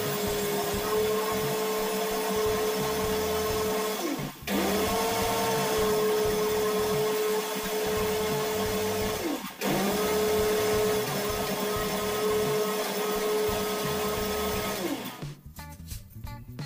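Electric mixer grinder (mixie) grinding urad dal with curd to a fine paste, run in three bursts of about five seconds each; its motor pitch rises as it spins up and falls as it stops between bursts. Near the end it stops and background music comes in.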